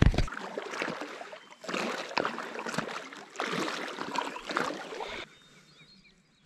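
Water splashing and sloshing as swim fins kick a float tube out from the shore, in uneven surges that stop about five seconds in.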